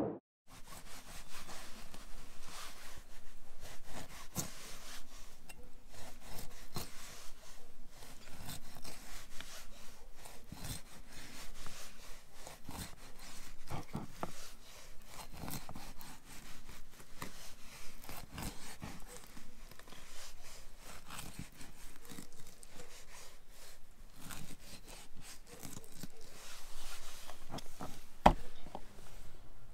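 Knife cutting between the ribs of a rack of goat ribs on a wooden table: irregular cutting and scraping strokes with short knocks on the board, a sharper knock near the end.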